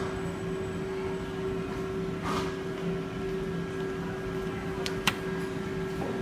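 Steady low hum of an indoor room, with a stiff menu being handled: a short rustle about two seconds in and a sharp slap about five seconds in as a page is turned over.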